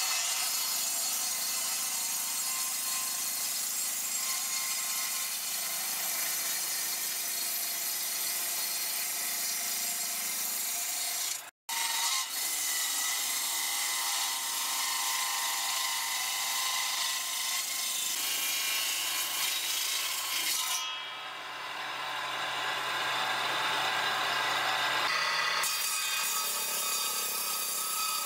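Table saw's circular blade, mounted under a wooden tabletop, ripping lengthwise through a bark-covered log: a steady cutting noise from the spinning blade in the wood, with a brief break near the middle.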